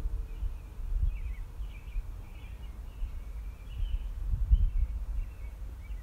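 Small birds chirping repeatedly in short calls over a low, uneven rumble that swells about four and a half seconds in.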